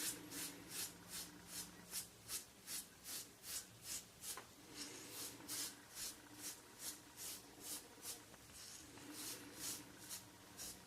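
Rockwell 6c safety razor with a SuperMax Blue Diamond blade scraping through seven days of head stubble in short, even strokes, about two or three a second, over a lather of hair conditioner. The strokes become fainter and sparser near the end.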